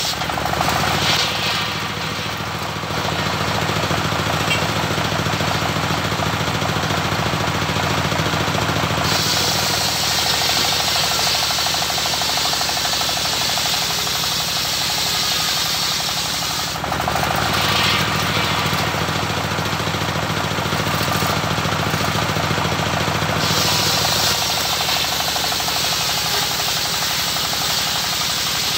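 Homemade engine-driven circular sawmill running steadily while its blade rips lengthwise through a waru (sea hibiscus) log. The harsh cutting noise grows louder twice: for several seconds near the start and again for several seconds past the middle.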